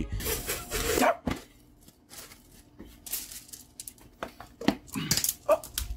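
Movement close to the microphone: a second-long rustling rush at the start, then scattered faint rustles and taps.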